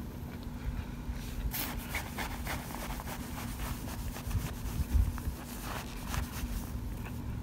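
Oven-baked cornstarch chunks crunching and crumbling as a plastic utensil scrapes and pokes through them: a run of dry, crackly scrapes that starts about a second and a half in and stops shortly before the end.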